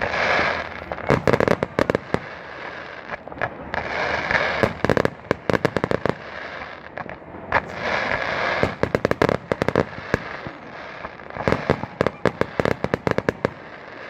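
Fireworks going off in about four volleys, each a burst of hissing followed by a rapid string of sharp cracks and pops.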